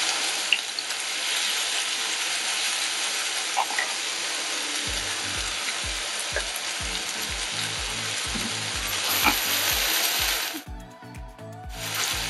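Thin slices of raw beef sizzling steadily in hot oil in a frying pan as they are stirred with a wooden spatula. The sizzle cuts out for about a second near the end.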